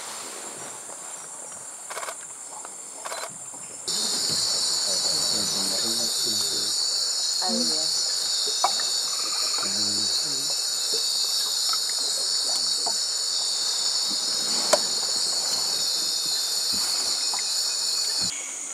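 Dense night-time insect chorus of crickets or katydids, a loud steady high-pitched shrill that starts abruptly about four seconds in and cuts off just before the end. Before it there is only quieter forest ambience.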